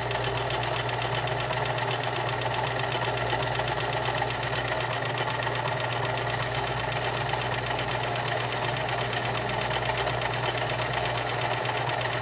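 Kenmore Model 1946 convertible free-arm sewing machine running steadily, its motor humming and needle stitching fabric at an even pace while sewing a built-in stretch stitch. It runs smooth and quiet, a serviced machine in good working order.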